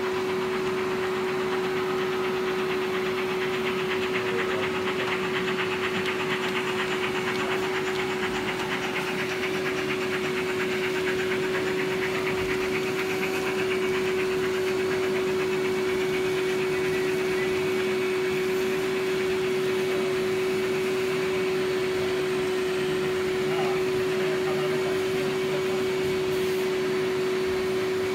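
Märklin H0 model steam locomotive running on track: a steady hum with a rapid, fine rhythmic rattle of wheels and running gear.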